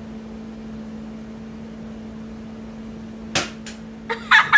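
A Bug-A-Salt spring-powered salt gun fires once about three seconds in, a single sharp snap as it shoots salt into a man's arm. A short, louder vocal reaction follows near the end, over a steady low hum.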